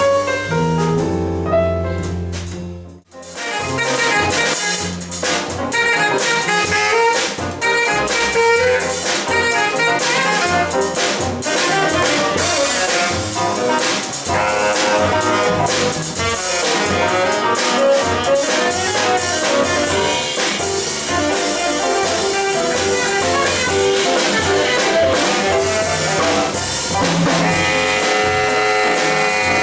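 Live jazz: a piano and upright bass passage cuts off abruptly about three seconds in, then a saxophone plays a busy line of short notes over piano and upright bass.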